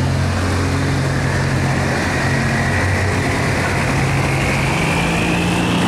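Diesel engines of cargo boats and a pushboat running steadily at low revs, a deep hum whose pitch shifts slightly a couple of times, over a noisy wash. A thin high whine slowly sinks and then rises again in pitch.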